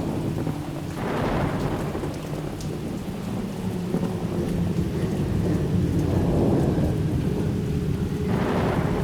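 Horror ambience of low rolling thunder under rain, with a faint steady drone beneath. It swells in the middle, with a brief rush of hiss about a second in and another near the end.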